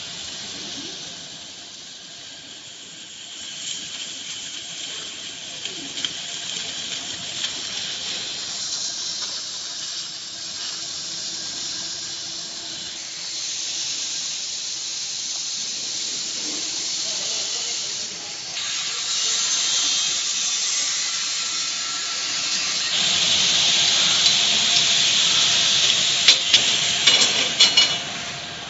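LG-FC1000-1530 laser cutting machine cutting steel plate: a steady hiss of the cutting jet and spatter, growing louder later on. Near the end come a few sharp metallic clinks.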